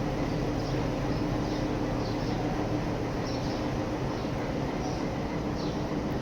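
Ooty toy train running: a steady rumble with a low hum, and short high squeaks or chirps scattered through it.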